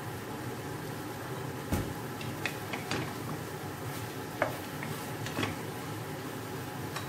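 A wooden spatula stirs chicken feet in sauce in a pot, scraping and knocking against the pot's sides. The knocks start a little under two seconds in, come about five times, and the loudest falls about four and a half seconds in, over a steady background hiss.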